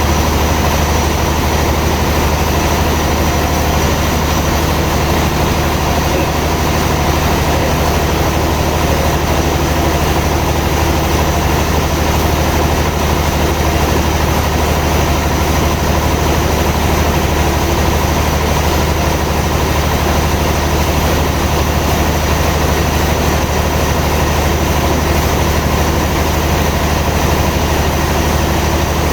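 Sawmill machinery running steadily, a loud, even low hum with no change for the whole stretch.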